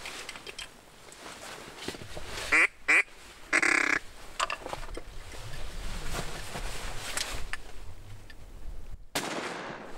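A duck call blown into quacks close by: two short quacks and then a longer quacking run, over steady wind noise.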